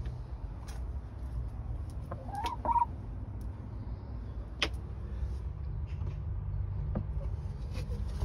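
A hen clucking once, a short call that rises and wavers about two and a half seconds in, over a steady low rumble with a few sharp clicks.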